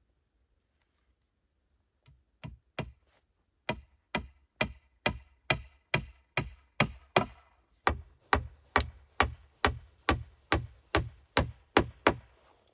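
Rapid, regular blows of a hand tool striking wood, about two a second. They begin about two seconds in with a few lighter taps, then settle into a steady, hard rhythm.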